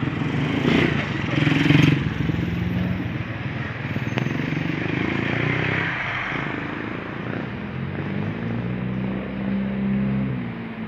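Street traffic: a motor vehicle engine running close by, louder in the first two seconds and again near the end.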